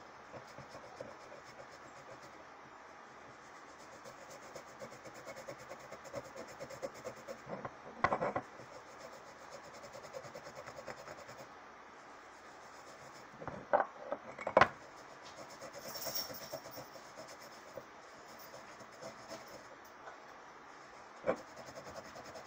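A damp cloth scrubbing a glass jar coated in a coconut oil and baking soda paste, rubbing off label adhesive residue: a faint, steady scratchy rubbing. A few short, sharper knocks stand out, about 8 s in, twice around 14 s and near the end.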